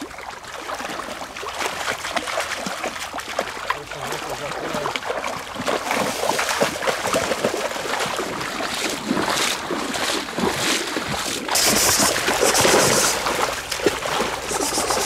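Water splashing and sloshing as a dog and a person in waders wade and run through a shallow creek, in a run of uneven splashes that grows louder about twelve seconds in.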